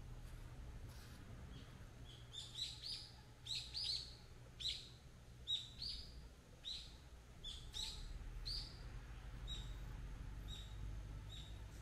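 A small bird chirping outdoors: a run of short, high chirps that each sweep downward, one or two a second. They are loudest and thickest in the middle stretch and thin out toward the end.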